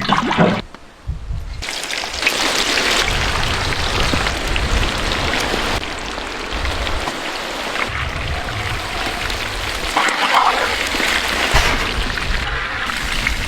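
Food frying in hot oil in a pan: a steady, hissing sizzle that starts about a second and a half in.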